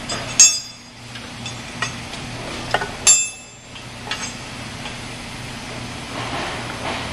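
Metal clinks as steel case bolts are started by hand into the ductile iron casing of a centrifugal pump. Two loud, ringing clinks about three seconds apart, with lighter taps between them, over a steady low hum.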